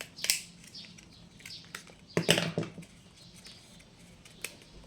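Scattered light clicks and crackles of hands handling a sealed plastic RAM module package, with a louder crinkling cluster a little after two seconds.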